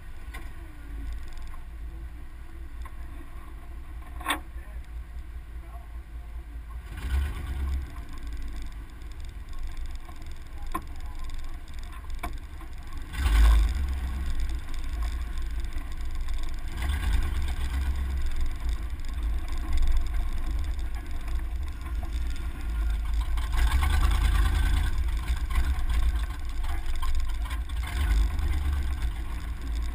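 Off-road truck driving slowly over dirt tracks, heard from a camera mounted low on the door: a steady low rumble of engine and tyres, with a sharp click about four seconds in and louder surges of rumble from about halfway through.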